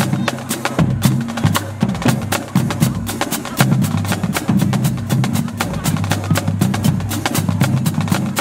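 High school marching drumline playing a cadence: rapid, sharp snare drum and stick hits over a pattern of pitched marching bass drums.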